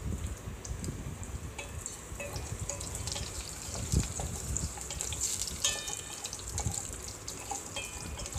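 Oil sizzling and crackling as chopped coconut, onion and green chillies fry in a steel pot. A sharper knock about four seconds in is likely the spatula against the pot.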